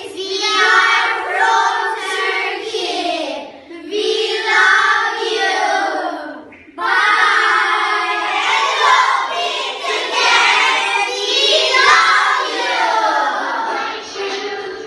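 A group of young children singing together in unison, with two short breaks between lines.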